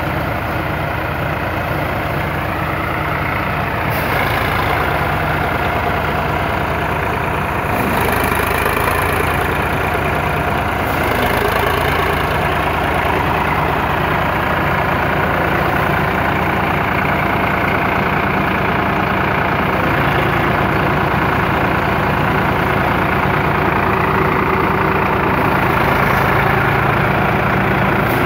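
Sonalika DI-47 RX tractor's diesel engine running steadily under load, driving a Dashmesh paddy thresher, with the threshing drum and fans whirring. A few brief surges of hiss rise over it early in the first half.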